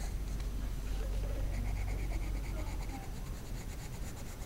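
Graphite pencil sketching on paper: faint, irregular scratching strokes over a low steady rumble.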